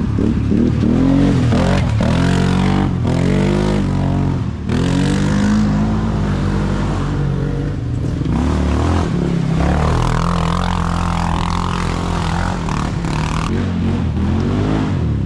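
ATV quad engines revving up and down over and over, the pitch rising and falling about once a second. A second, higher-pitched engine joins in partway through.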